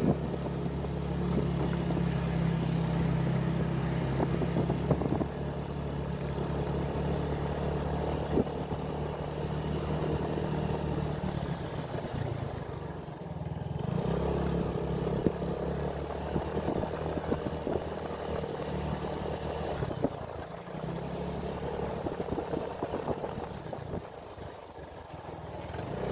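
A small engine running steadily, its low hum easing off briefly about halfway through and again near the end.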